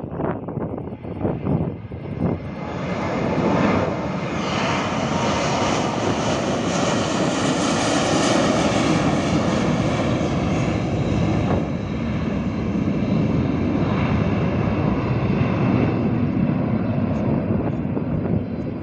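Jet airliner's twin engines at takeoff thrust: the jet noise swells a few seconds in as the aircraft accelerates down the runway, is loudest and brightest about eight seconds in as it passes close by, then stays loud and slightly duller as it climbs away.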